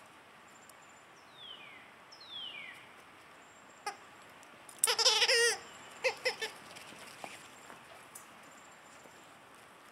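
Dogs chewing rubber squeaker toys: two short falling squeaks, then a loud burst of rapid wavering squeaks about five seconds in, followed by a few short squeaks.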